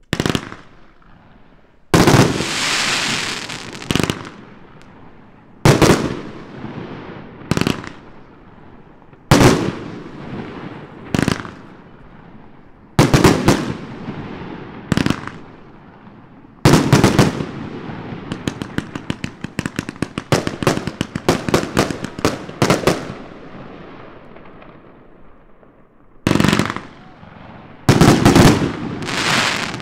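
Svea 'Trippel Decker' consumer compound firework cake firing: loud bangs of shells breaking, roughly one every two seconds, each trailing off, then a rapid run of crackling pops about 18 seconds in, and more bangs close together near the end.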